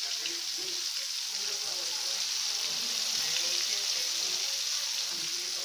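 Flour-battered pork belly deep-frying in hot oil in a wok, a steady sizzle.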